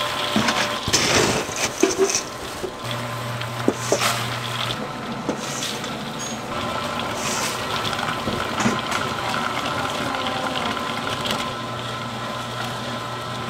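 Motor-driven stirring paddle of a steel cooking kettle churning peanuts through hot sugar syrup: a steady motor hum under the wet scraping and rattle of the nuts against the pan. The clatter is busiest, with sharp clicks, in the first few seconds, then settles into an even churning.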